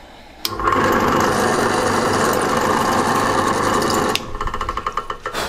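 Drill press starting up about half a second in and running while a split-point pilot drill spots a centre into the end of a threaded rod. About four seconds in it gets quieter, and it stops near the end.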